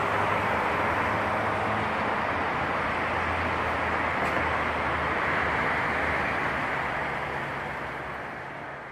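Steady rushing noise of city traffic, with a faint low engine hum, fading out over the last few seconds.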